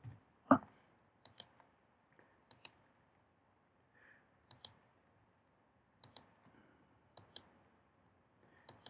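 Computer mouse clicking, mostly in quick double-clicks about every second or so, with one louder short knock about half a second in.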